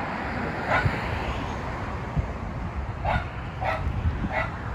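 A dog barking four times in short yelps, spaced irregularly, over a steady low rumble.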